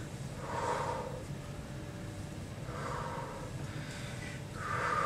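A woman breathing out heavily through her mouth three times, about two seconds apart: slow, deep breaths during a cool-down stretch after a cardio workout.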